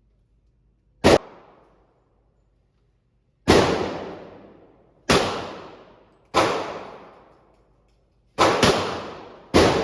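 Gunshots at a shooting range: seven sharp reports, each followed by a fading echo. The first comes about a second in, the next ones at roughly one-and-a-half-second intervals, and near the end two come in quick succession.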